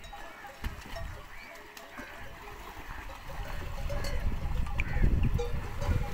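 Calls from a camel herd drinking at a pond: short, scattered calls, with a low rumble swelling in the second half.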